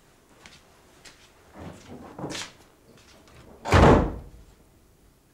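A door slammed shut: one loud bang nearly four seconds in, with a few quieter knocks and scrapes before it.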